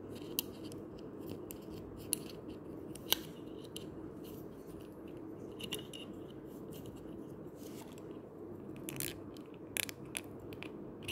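Small plastic pieces handled by hand: scattered light clicks and crinkles, a few sharper ones about three seconds in and again near the end, over a low steady hum.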